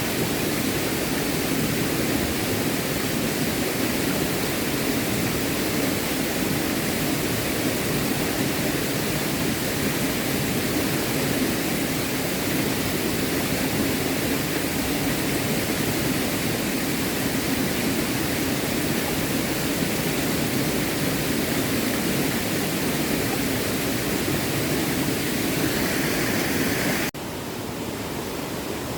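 Small stream running, a steady rush of water. About 27 seconds in it cuts abruptly to a quieter, duller rush.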